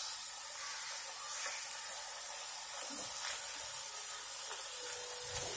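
Wooden spatula stirring and pressing red amaranthus leaves down into a saucepan of hot water on a gas stove, with a few soft knocks against the pan, over a steady hiss.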